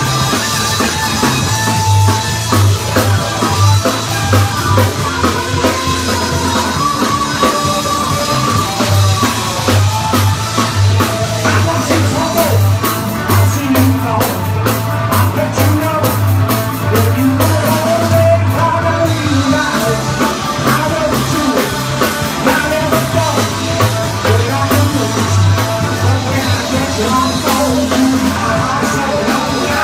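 Live punk rock band playing loudly: drum kit, a repeating bass line and electric guitar, with singing over them.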